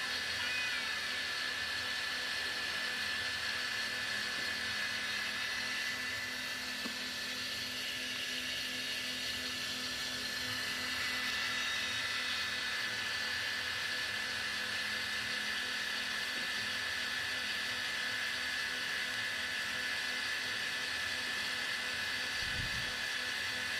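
Cotton candy machine running steadily: the motor spinning the heated sugar head gives a continuous hum and whine with a hiss.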